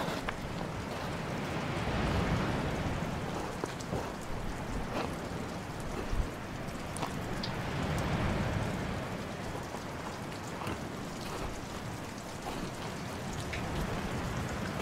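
Footsteps crunching over a pebble and gravel beach, scattered irregular crunches, over a steady rushing noise that swells and fades twice.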